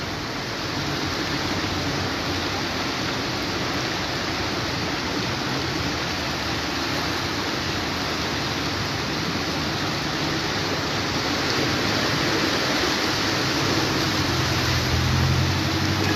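Steady rush of floodwater and rain across a flooded street. Near the end a vehicle engine hums low and close as cars wade through the water.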